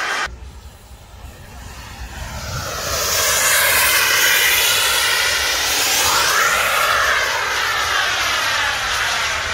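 Radio-controlled model aircraft flying past, its engine a high steady whine that grows louder from about two seconds in, with the pitch rising and falling as it passes about six seconds in.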